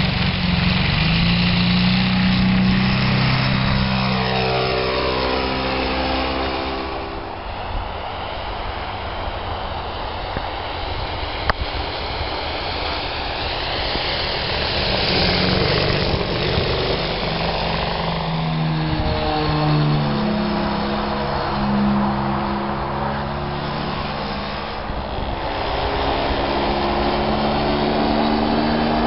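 Radio-controlled model airplane's motor and propeller running in flight as it passes back and forth. The pitch drops as it flies past and rises as it comes back.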